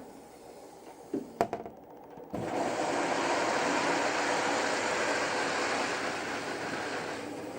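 Panasonic NA-168VX4WGN washing machine starting its program: a few clicks about a second in, then a sudden steady hiss of water rushing into the drum as it fills for the soak.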